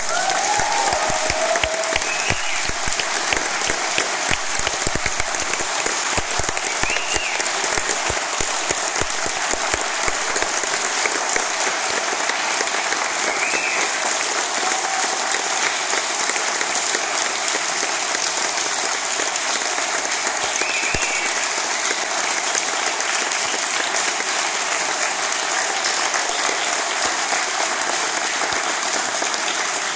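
Audience applauding steadily, dense hand-clapping that starts as the music stops, with a few brief calls rising over it now and then.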